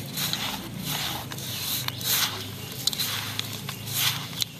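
A hand kneading and squashing damp crushed chocolate biscuit crumbs against a plate, as goat milk is worked in to make a cake mixture. It gives gritty, squishy scraping strokes, about one a second.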